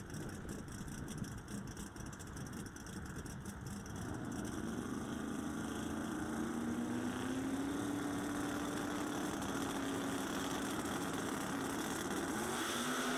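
Drag-race V8s in two Pro Outlaw 632 doorslammers at the starting line: a choppy, lumpy idle at first, then held at a steady raised rev as the cars stage, with the pitch beginning to rise near the end as they leave.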